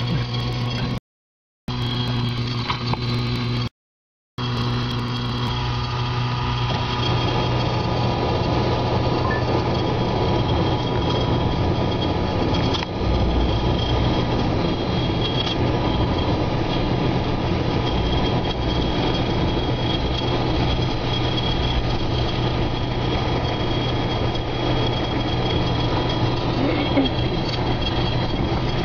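Steady rushing storm wind with a constant low hum under it, cut by two short dead silences in the first few seconds. The rushing grows denser about seven seconds in.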